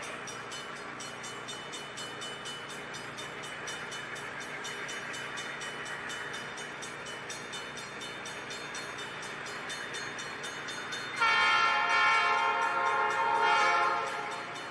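Norfolk Southern diesel locomotive approaching with a steady engine rumble, then sounding its air horn in one long blast of about three seconds near the end.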